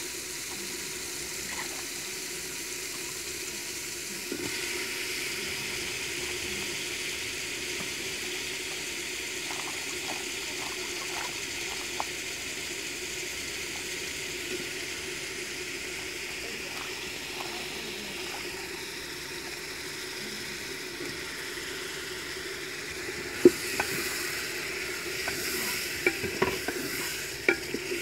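Eggplant pieces sizzling in oil and spiced masala in an aluminium pot, with soft ticks as more pieces drop in. Near the end a spoon stirs the pot, knocking sharply against the metal a few times.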